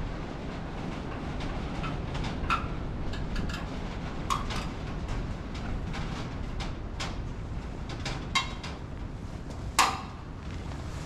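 Scattered metallic clicks and knocks of the sheet-metal side panel on an Oliver 660 tractor being worked loose and lifted off, the loudest knock near the end. A steady low rumble of wind lies under it.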